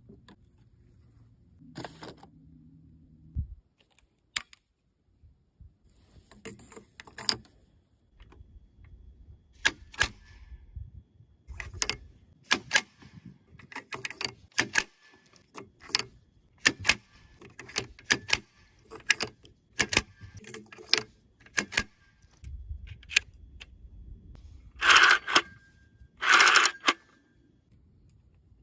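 A series of sharp mechanical clicks and clacks at irregular intervals, with two louder, longer bursts near the end.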